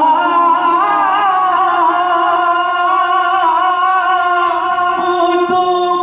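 A man singing a salaam, a devotional salute to the Prophet, into a microphone, holding long notes with wavering, ornamented turns.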